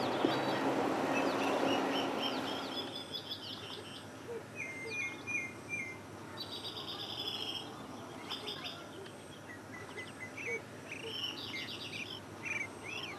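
Several birds chirping and calling, with quick trills and runs of short high notes. At the start a vehicle's rushing noise fades away over the first three seconds.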